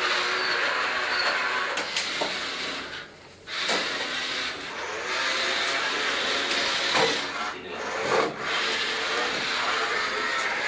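Small electric motors and plastic gearboxes of wired-remote toy Pegaso lorries whirring as they drive across a tile floor. The whirr stops for a moment about three seconds in and swells briefly twice later on.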